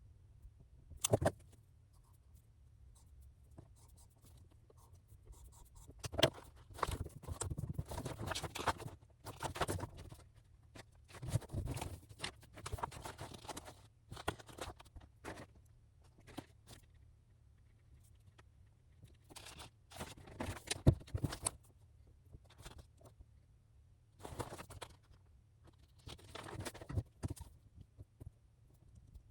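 Irregular rustling and scratching, like paper and stationery being handled at a desk, with a few sharp clicks, the loudest about a second in and about 21 seconds in.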